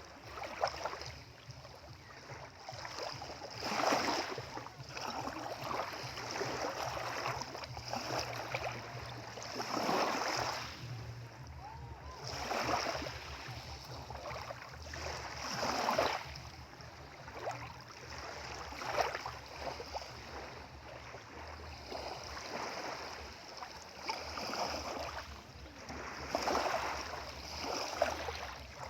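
Waves on the Sea of Galilee washing and splashing, swelling every few seconds, over a low steady hum.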